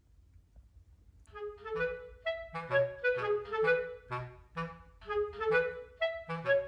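Background music: a light, bouncy woodwind tune, clarinet-like, over low bass notes, starting about a second in after a faint low hum.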